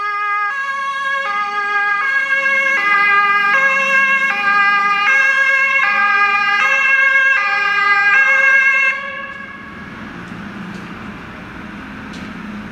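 Two-tone German Martinshorn siren on a Red Cross command vehicle (VW Transporter) driving off on an emergency run, switching between a high and a low tone about every three quarters of a second. The siren cuts off about nine seconds in, leaving vehicle and traffic noise.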